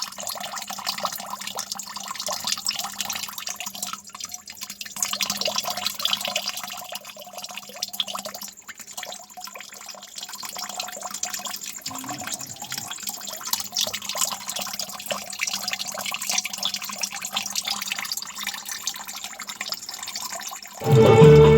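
Water splashing and trickling steadily down a small homemade fountain waterfall, with the faint steady hum of its small water pump underneath.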